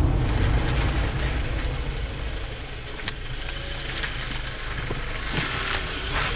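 Low engine and tyre rumble of a car driving slowly, heard from inside the cabin, with a single click about three seconds in and a rush of hiss near the end.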